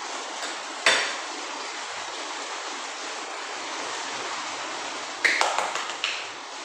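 Forks knocking and clinking against plates over a steady hiss: one sharp knock about a second in, then a quick run of clicks near the end.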